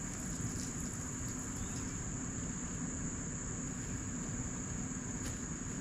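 Steady, high-pitched drone of summer insects, with a faint low rumble beneath.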